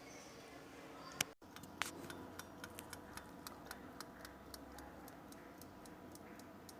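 1977 Westclox mechanical wind-up alarm clock ticking steadily with quick, even ticks, several a second, freshly cleaned and oiled and running again. A couple of louder clicks come about a second in, just before the ticking.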